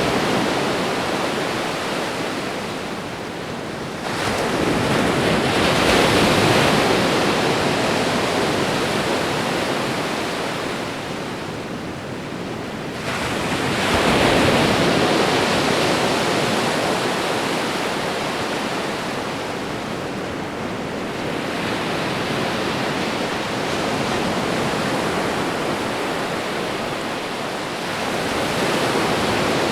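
Ocean waves washing onto the shore: a continuous surf hiss that swells as each wave comes in and falls away between them, about four waves in half a minute.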